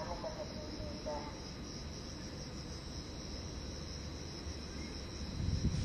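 Steady high-pitched chirring of insects such as crickets, over a faint low rumble.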